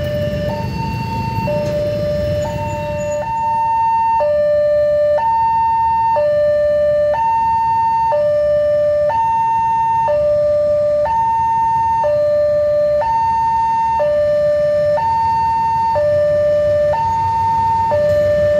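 Railway level-crossing warning alarm sounding a two-tone electronic signal that alternates between a higher and a lower tone, each held about a second, warning that the crossing is closed for an approaching train. A low rumble runs underneath.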